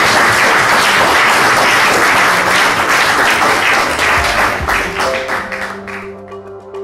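Audience applauding, a dense clatter of many hands that dies away about five seconds in as background music with sustained notes fades in.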